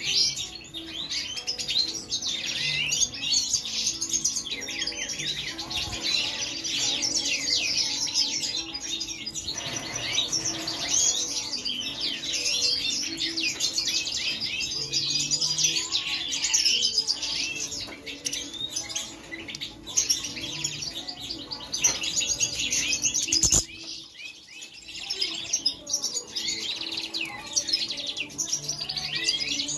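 European goldfinches twittering and chirping continuously in a fast, busy run of high notes. A single sharp click sounds about three-quarters of the way through, followed by a brief lull in the chirping.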